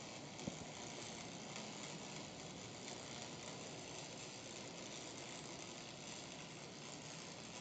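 Steady crackling hiss of an electric arc welding a pipe, with one sharp click about half a second in.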